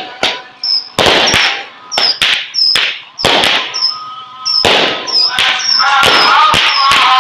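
Fireworks exploding in quick succession: many sharp bangs, each trailing off in a crackle. They come in clusters and run together into a near-continuous crackling barrage from about six seconds in.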